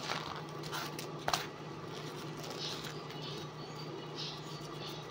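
Soft rustling and tearing of thin flatbread (khubz) being pulled apart by hand, with a sharp click a little over a second in, over a steady low hum.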